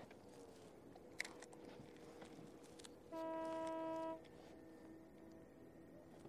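A distant horn sounds one steady, even-pitched blast lasting about a second, a little past halfway through, with fainter held tones of the same kind before and after it.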